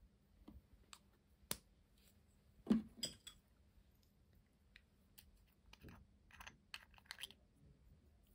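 Scattered light clicks and taps from small clear glitter containers being handled over a glass bowl, with the loudest knock about two and a half seconds in and a quick cluster of clicks near the end.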